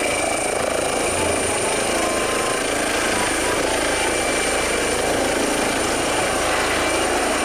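Helicopter sound for a toy helicopter: a steady whirring rotor noise with a thin high whine over it, unchanging throughout.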